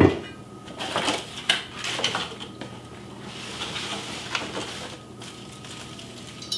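An enameled cast iron lid is set down on a countertop with one sharp knock. Then cardboard packaging and plastic wrap rustle and crinkle for several seconds, with small knocks, as a cast iron braiser is lifted out of its box.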